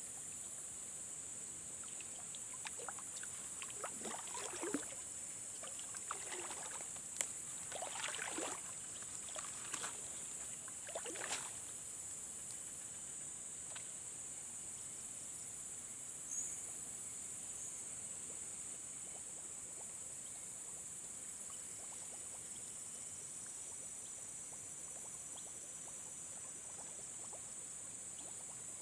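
Water splashing and sloshing in short, irregular bursts for the first dozen seconds, over a steady high-pitched drone of insects.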